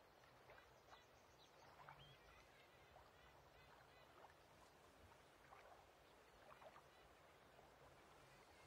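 Faint lake ambience: water gently lapping, with small irregular splashes and drips.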